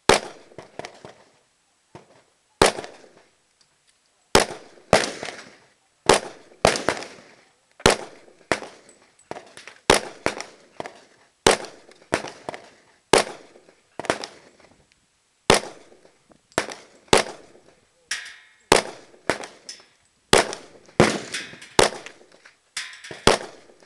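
Glock 22 pistol in .40 S&W fired again and again at a steady pace, a sharp shot every second or two, each followed by a short echo. Weaker shots fall in between the loud ones.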